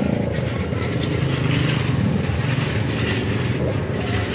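An engine running steadily, with shovels scraping and scooping through stone track ballast now and then.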